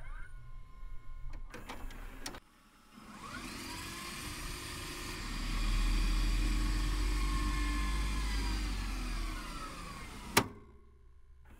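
VCR rewinding a videotape: the mechanism whirs, rising in pitch as the reels speed up, runs steadily, then winds down and stops with a sharp click near the end. A few clicks and crackles come before it starts.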